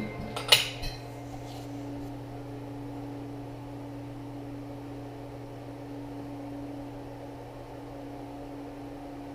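A sharp metallic clink about half a second in, then a steady low electrical hum.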